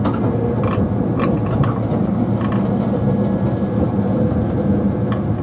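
Nagasaki Electric Tramway 3000-class streetcar running along its track, heard from inside the car: a steady low rumble with a faint even hum, broken by a few scattered sharp clicks.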